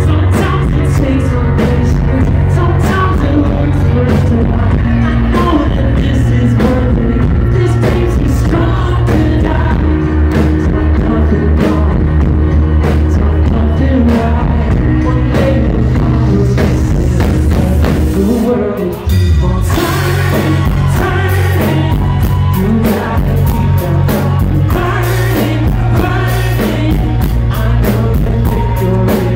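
Live rock band playing loud: a male lead singer over electric guitar, keyboards, a heavy steady bass line and drums. About two-thirds of the way through the band drops out for a moment, then comes back in fuller, with more cymbals.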